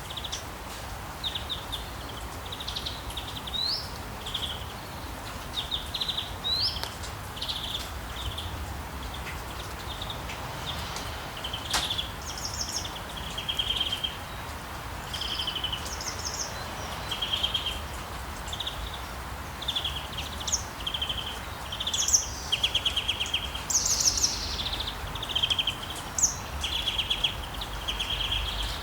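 Several birds chirping in short repeated trills, one after another, over a steady low outdoor background. There is one sharp click about twelve seconds in.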